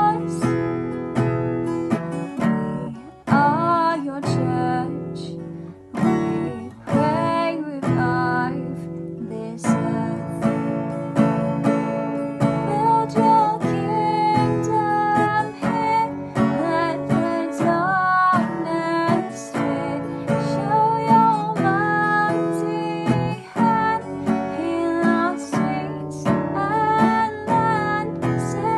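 Acoustic guitar strummed steadily, accompanying a sung worship song, with a singing voice at times.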